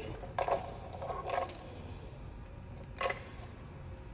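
Small hard parts clicking and clinking as they are handled, in three short clatters, the sharpest about three seconds in.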